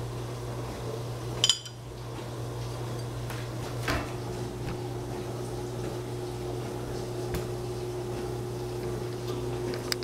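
A sharp, ringing clink of chopsticks against a ceramic bowl about a second and a half in, then a softer knock around four seconds and a light click near the end, over a steady low hum.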